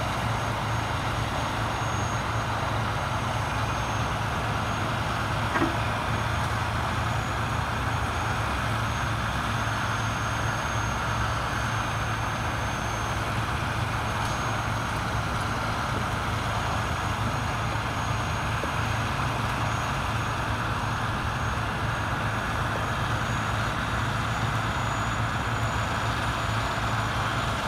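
Diesel engine of a heavy wrecker tow truck running steadily as a low hum, powering its boom winch while it lifts a car out of the water. There is a single small click about five and a half seconds in.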